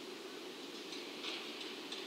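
A steady low hum with a sharp tick that starts about a second in and repeats about three times a second.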